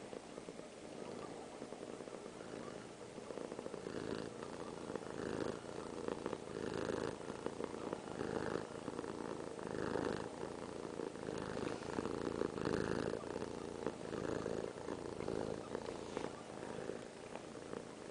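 Domestic cat purring steadily close to the microphone, with louder swells about every second and a half; the purr grows stronger a few seconds in.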